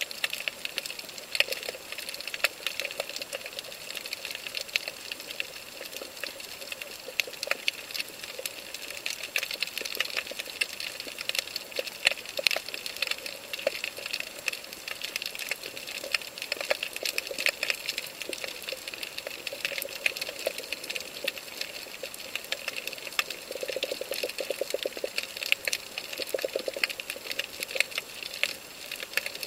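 Underwater coral-reef crackle: a dense, steady stream of small sharp clicks. A low buzzing pulse comes in twice in the last few seconds.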